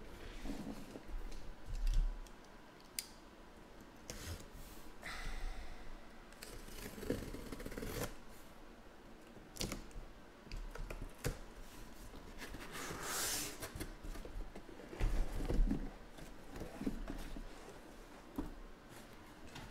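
A cardboard shipping case being opened by hand: packing tape cut and pulled, with irregular knocks and scrapes of cardboard being handled. A longer rasp of cardboard or tape comes about two-thirds of the way through.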